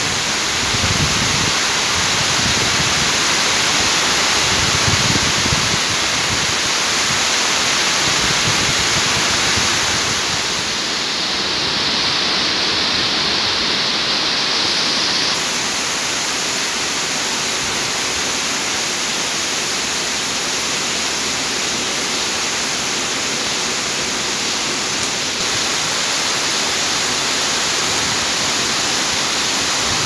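Heavy rain falling steadily, a dense even hiss, with a couple of low rumbles in the first few seconds.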